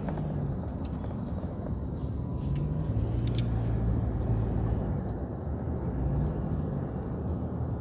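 A road vehicle's engine humming and its road rumble, heard from inside the moving vehicle. The engine note shifts slightly in pitch, strongest from about three to five seconds in, with a few faint rattles.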